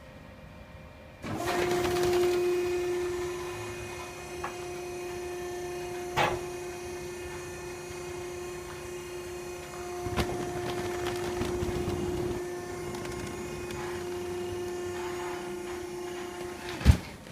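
Piqua vertical baler's hydraulic pump and motor starting about a second in and running with a steady whine as the press lifts to flip the finished bale out of the chamber, with a few knocks along the way. It stops just before the end with a single loud bang.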